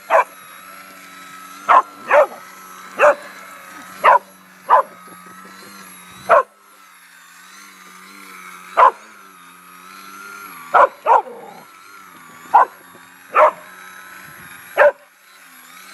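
A dog barking excitedly at a model airplane hovering over the water: about a dozen single sharp barks, irregularly spaced roughly a second apart. Behind them the RC plane's motor and propeller drone steadily, their pitch wavering as it hovers.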